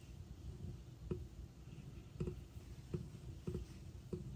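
Newborn kittens suckling at their mother cat's teats, making soft, faint smacking clicks about five times, roughly one every second or less.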